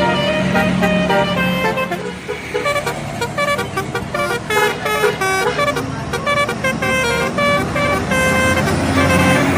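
Indonesian bus telolet horn playing a tune: held tones for about the first two seconds, then a quick run of short notes changing in pitch. A bus engine runs underneath.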